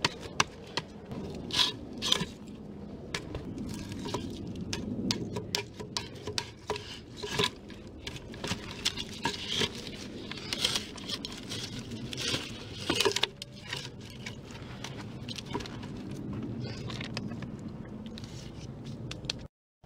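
Logs being handled and stacked into a log wall: irregular knocks of wood on wood, with scraping as the logs are pushed into place between the upright stakes.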